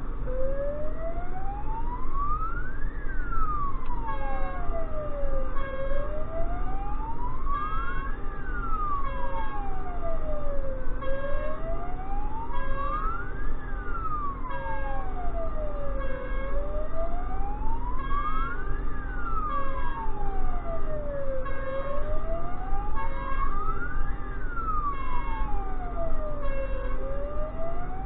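Fire engine's electronic siren on a slow wail, rising and falling about every five seconds, heard from inside the cab over the truck's steady engine drone. From about four seconds in, short regular pips sound alongside it.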